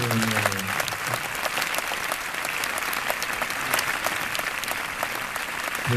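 Concert audience applauding: steady, dense clapping from many hands.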